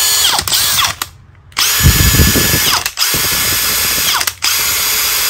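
Makita XPH14 18V brushless hammer driver-drill run with no load in several short trigger pulls. Each run spins up to a steady whine and winds down when released, and it runs quietly and smoothly for a drill.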